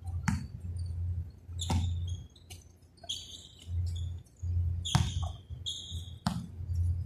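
Basketball bouncing on a court in a few scattered thuds, with short high-pitched sneaker squeaks between them.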